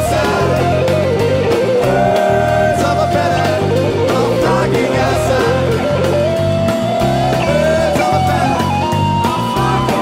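Live rock band playing a jam, with a lead guitar holding and stepping up sustained notes over bass and a steady drum beat.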